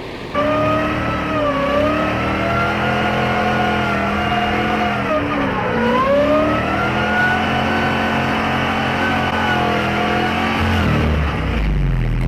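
LS1 V8 engine in a Nissan S13 drift car running hard at high revs. The revs dip sharply about halfway through, climb back up, and drop away near the end.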